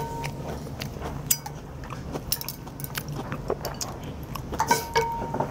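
Metal ladle clinking and scraping against a large porcelain bowl while scooping udon in broth: a run of sharp clinks, a few ringing briefly, most clustered near the end.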